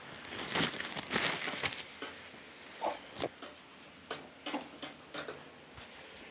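Chickens pecking and scratching in wood-shaving litter: a rustle through the first couple of seconds, then scattered sharp pecking taps.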